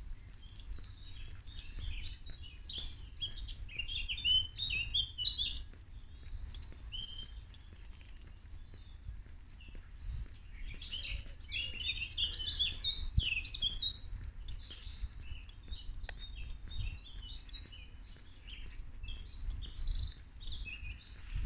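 Songbirds singing in the trees: rapid runs of high chirping notes, densest in two bouts early and midway, with scattered phrases after. A low rumble runs underneath on the phone's microphone.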